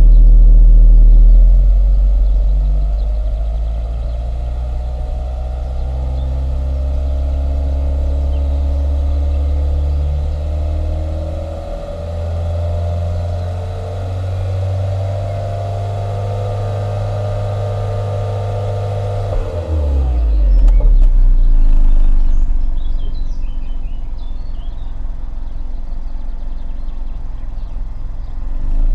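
VW Golf VI 1.2 TSI four-cylinder turbo petrol engine running at the exhaust pipe: loud and low at first, then held at raised revs with its pitch slowly climbing. About twenty seconds in the revs drop away with a short loud low rumble, and it settles back to a steadier run before swelling again at the end. Birds chirp faintly in the background.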